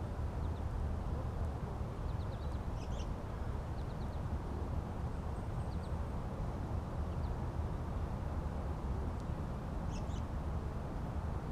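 Steady low outdoor rumble, with faint high chirps of small birds several times over it.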